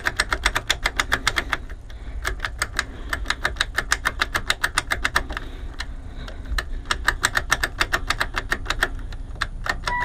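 Rapid, even clicking, about seven clicks a second, from the van's electrics with the key switched on in the ignition, and a short beep near the end.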